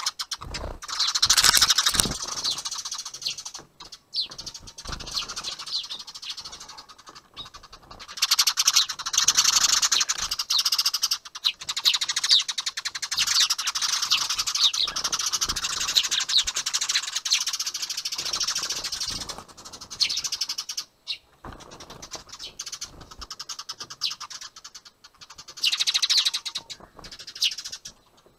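Eurasian tree sparrows chirping rapidly and excitedly in long dense stretches with short breaks: the agitated calling of a squabble between sparrows at the nest. A few dull thumps come in the first couple of seconds.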